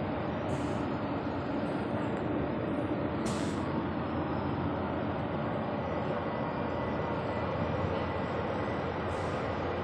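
Steady mechanical drone, with short hisses about half a second in, just after three seconds in, and near the end.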